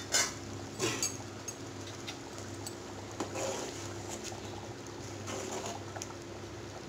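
Thick paneer gravy bubbling at the boil in an aluminium pot, with a steel spoon knocking against the pot twice near the start, then stirring through the gravy.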